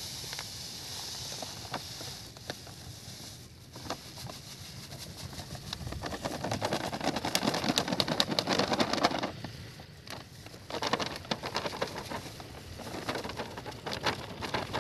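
Carbofuran insecticide granules pouring and pattering out of a plastic packet onto a granular heap as the packet is shaken, with crinkling plastic. It is busiest from about six to nine seconds in and picks up again after about eleven seconds.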